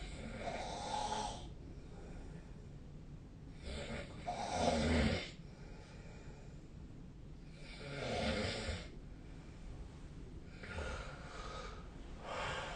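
A sleeping person snoring: a rasping snore breath roughly every three to four seconds, the loudest about midway.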